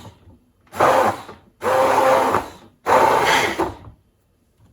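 Electric blender motor run in three short bursts of about a second each, blending milk, banana and ice cream into a milkshake, then switched off.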